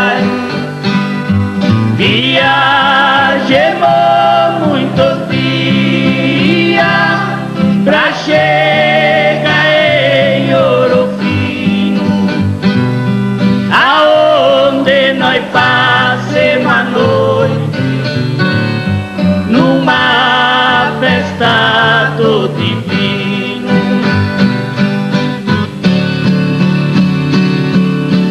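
Música caipira: two men singing together with vibrato over strummed acoustic guitars.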